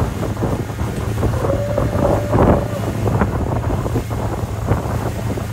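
Motorboat engine running steadily at towing speed, with wind buffeting the microphone and water rushing past. A long held shout rises over it about two seconds in.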